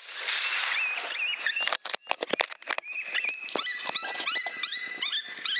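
A wounded coyote crying out: short yelping, whining calls that rise in pitch, repeated several times a second. A quick cluster of sharp clicks comes about two seconds in.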